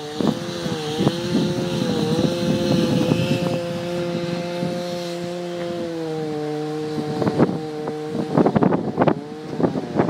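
An engine running steadily at a near-constant pitch, its note dropping slightly about six seconds in, with wind buffeting the microphone, heaviest near the end.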